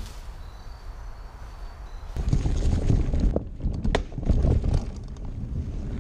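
About two seconds of faint background, then the close, loud rumble and clatter of a Santa Cruz Bronson full-suspension mountain bike rolling over a rough dirt trail, with many sharp knocks and rattles, heard from a camera mounted on the bike.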